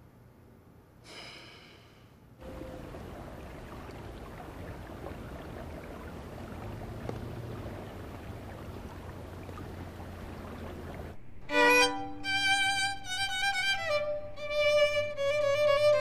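A solo violin starts suddenly about eleven seconds in and plays a sustained melody with vibrato. Before it comes a steady, even background noise.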